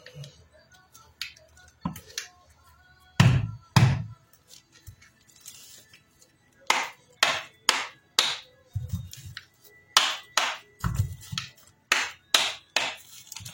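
Irregular sharp taps and knocks, some with a dull thump, from handling and tapping the parts of an opened angle grinder.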